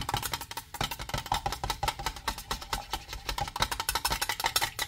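Paint being stirred by hand in a small metal tin, the stirrer knocking and scraping against the inside of the can in a fast, even run of small clicks.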